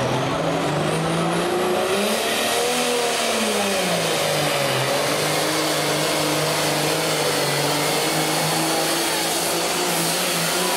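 Ford 9000 tractor's diesel engine at full throttle under heavy load, pulling a weighted sled. Its pitch rises about two seconds in, sags back, then holds steady.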